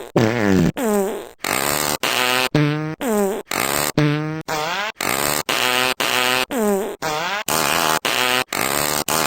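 A rapid string of cartoon fart sound effects used as a toy's poop sound, each about half a second long, many sliding down in pitch. They are cut back to back at about two a second.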